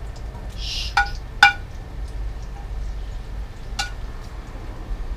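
A plate clinking against a frying pan as sliced mushrooms are scraped off it into the pan with a wooden spoon: three sharp ringing clinks, the loudest about a second and a half in, with a short hiss just before the first.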